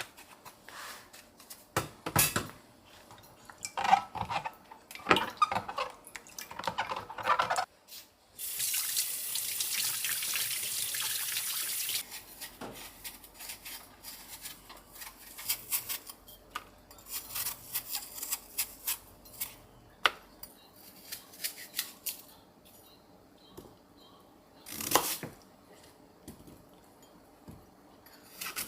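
Kitchen work: dishes and utensils clink and knock on and off, and a tap runs into the sink for about four seconds, starting about eight seconds in.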